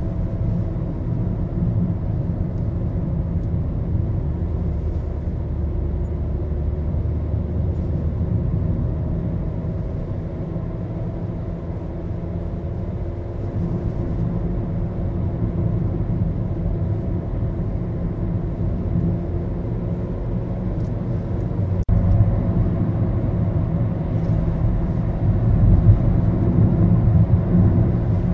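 Maruti Suzuki Baleno under way, heard from inside the cabin: a steady low rumble of engine and road noise, the engine note shifting slowly in pitch partway through.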